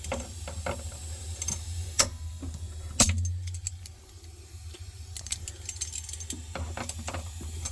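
Metal clicks and clinks of pinch-off pliers being worked onto a refrigerator's copper capillary tube, with a sharp click about two seconds in and a louder one about three seconds in, over a steady low hum.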